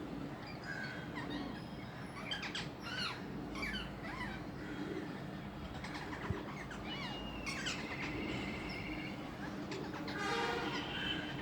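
Parrots calling: many short chirps and screeches one after another, with a longer, harsh, raspy call about ten seconds in, over a faint low steady hum.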